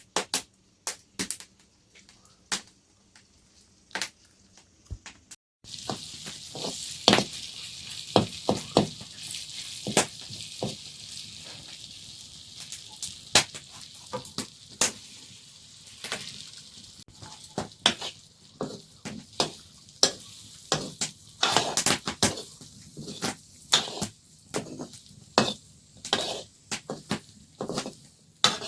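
Food sizzling as it fries in a pan, with many clicks and scrapes of a utensil stirring it. The sizzle starts suddenly about five seconds in, after a few sparse clicks.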